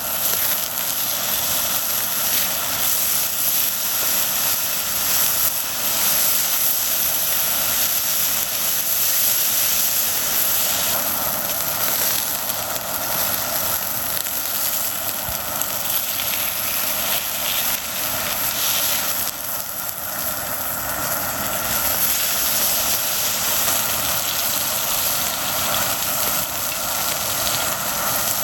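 Flowing mountain stream, a steady rush of water.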